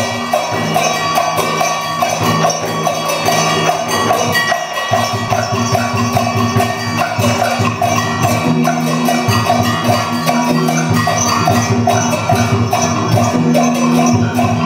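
Traditional Vietnamese water-puppet music: drums and percussion playing under steady held instrument tones, with a busy, rapid rattling running through it.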